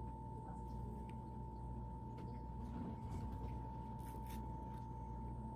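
A steady high single-pitched whine over a low background hum, with a few soft, crisp clicks of strawberry stems and leaves being pulled off by hand, the clearest a little after four seconds in.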